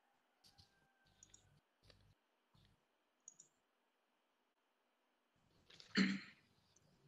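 Faint scattered clicks and small handling noises picked up in a small room, with one louder, brief noise about six seconds in.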